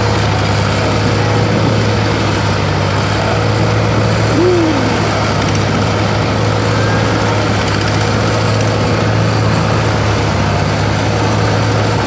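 A small engine running at a steady, even speed, with a constant low drone.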